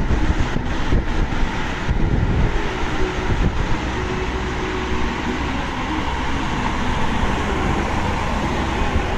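Steady rumble and rush of a moving vehicle: road and wind noise with a strong low drone.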